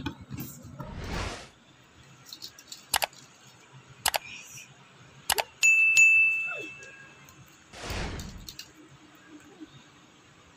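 Subscribe-button sound effects: three sharp mouse-click sounds followed by a bell ding that rings and fades over about a second and a half, with a swoosh before and another swoosh after.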